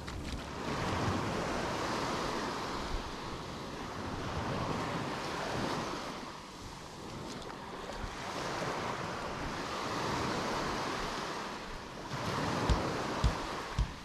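Small sea waves washing up onto a sandy beach, each wash swelling and fading every three to four seconds, with wind buffeting the microphone. A few low thumps near the end.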